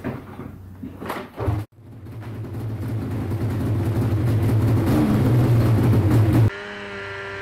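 Polaris 800 RMK Axys snowmobile's two-stroke twin engine starting and running, growing louder over a few seconds: the first run after its failed piston and top end were replaced. It cuts off abruptly near the end.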